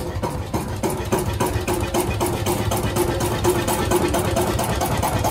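An engine idling with a steady, regular beat, the beats coming closer together about two seconds in.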